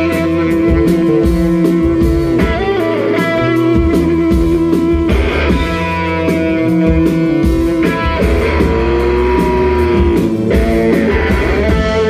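Live rock band playing: electric guitar with held and bending notes over a drum kit.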